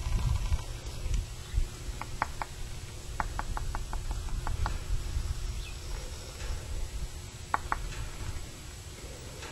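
Wind rumbling on the microphone, with three quick groups of short, sharp clicks: three about two seconds in, a rapid run of about eight soon after, and a pair near the end.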